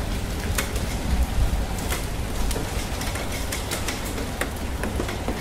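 Steady rain falling, with scattered individual drops tapping sharply, over a low rumble that swells briefly about a second in.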